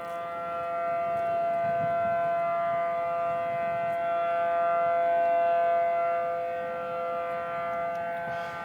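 Outdoor tornado warning siren sounding during a test, holding a steady pitch that swells in loudness through the middle and eases off near the end.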